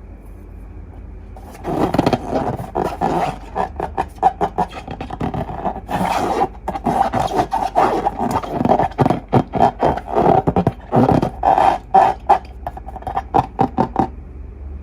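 Slime-filled rubber balloons being squeezed and rubbed by hand, giving a fast, irregular run of squeaks and squelches that starts about a second and a half in and stops shortly before the end. A low steady hum runs underneath.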